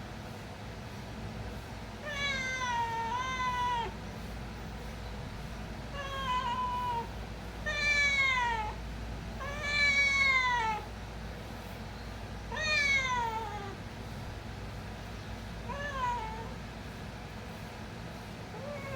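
A hungry domestic cat meowing for food: about six drawn-out meows, each falling in pitch, at irregular gaps of one to three seconds.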